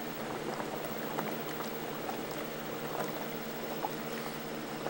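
Air bubbling up through water in an aquarium tank: a steady bubbling with scattered small pops, over a faint steady hum.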